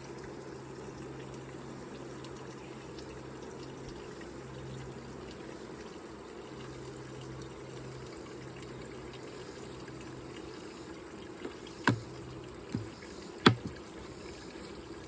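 Liquid feed being poured into a beehive feeder, a steady trickle throughout, with a few sharp knocks near the end.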